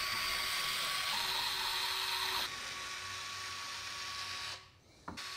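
Small handheld electric screwdriver whirring steadily as it backs screws out of the robot's limb casing. It drops to a quieter whir about two and a half seconds in, stops briefly near the end, then starts again.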